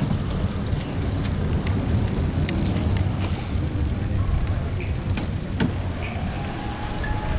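Outdoor street noise: a steady low rumble with scattered sharp clicks, as a human-powered velomobile and a recumbent trike roll by. A faint steady tone comes in near the end.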